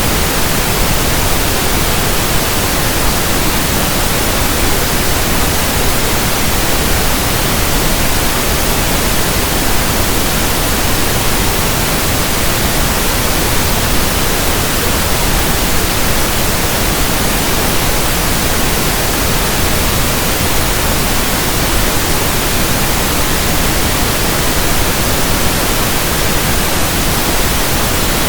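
Steady synthetic pink noise: an even hiss spread across all pitches that does not change.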